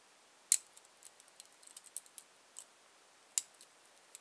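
Lock-picking clicks: the steel hook of a Southord Jackknife pick with an aluminium handle scraping and tapping the pins inside a six-pin cylinder lock as they are picked. There are scattered faint ticks and two sharper clicks, about half a second in and near the end.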